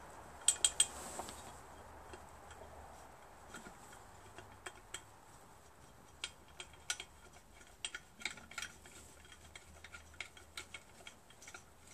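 Light, irregular metallic clicks and ticks, with a louder cluster about half a second in. They come from a steel head bolt and washer being turned by hand in the aluminium cylinder head of an air compressor pump, and from the head being shifted on its new gasket.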